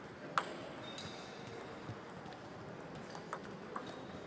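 Table tennis ball clicks against a steady murmur of a large hall: one sharp click shortly in, then a few fainter, irregularly spaced clicks.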